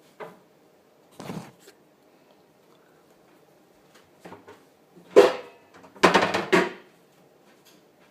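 Kitchen cupboard doors and drawers being opened and shut, with a few short knocks and clatters; the loudest come about five and six seconds in.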